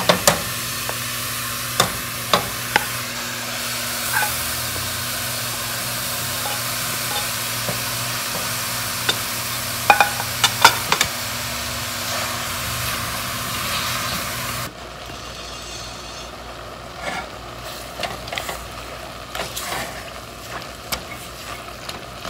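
Ground beef sizzling as it fries in a hot pan without oil, with scattered clicks and knocks of a utensil stirring it. About fifteen seconds in, the sizzle drops abruptly to a much quieter level with occasional clicks.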